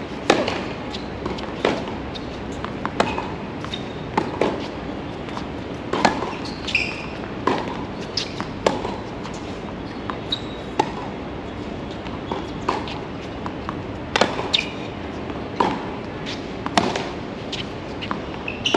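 Tennis warm-up rally on a hard court: sharp pops of racket strings striking the ball and the ball bouncing, coming at a steady rhythm of about one every second or so.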